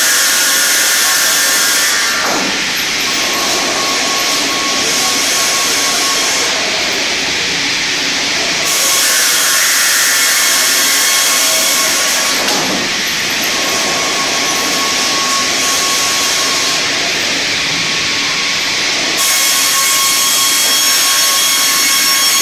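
StrojCAD D9 double-bladed circular sawmill sawing a spruce log: a loud, steady noise with a faint whine from the running blades. The hiss brightens and dulls every few seconds.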